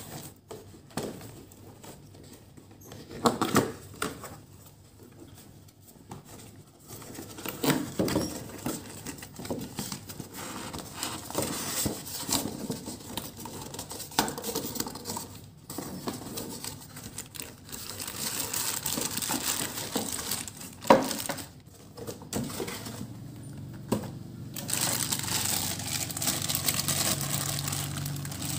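Cardboard figure box being handled and opened: flaps and the inner carton sliding, scraping and tapping. Near the end, clear plastic packaging crinkles more steadily as the wrapped figure parts come out.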